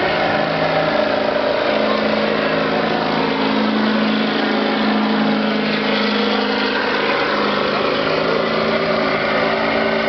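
Ford Super Duty diesel pickup's engine held at high revs under full load as it drags a weight-transfer sled down a dirt pull track. It makes a loud, steady drone whose pitch holds nearly level throughout.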